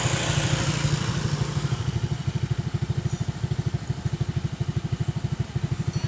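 Komatsu PC120 hydraulic excavator's diesel engine running with a steady low beat. About two seconds in, the heavier noise eases and the engine settles into a lighter, even chugging.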